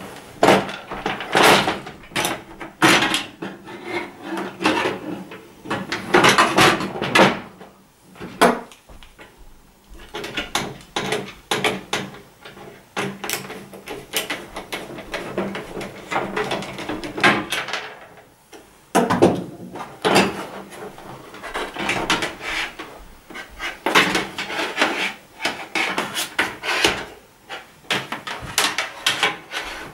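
Hard plastic back cover of an LCD TV being worked loose and lifted off, with clacks, scrapes and rattles against the metal chassis, and a screwdriver turning a screw. Bursts of clattering with short pauses between them.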